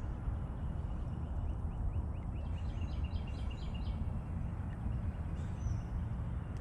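A bird calling in a quick run of short, high notes about two to three seconds in, over a steady low rumble.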